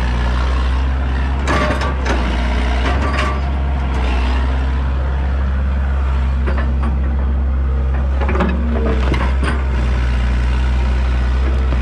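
Hitachi tracked excavator's diesel engine running steadily under digging load, with a hydraulic whine that comes and goes as the boom and bucket move. Short clanks and scrapes from the steel bucket in the dirt about a second and a half in, around three seconds, and twice near the end.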